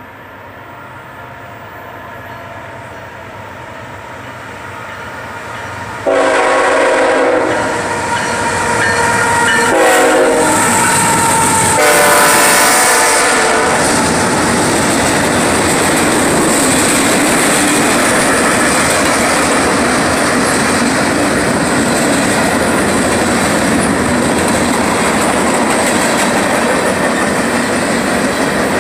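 CSX freight train led by a GE ET44AH diesel locomotive rumbling closer, then sounding its air horn in three blasts, long, short and long, about six seconds in. The locomotives and a string of empty flatcars then roll past with steady wheel-on-rail noise.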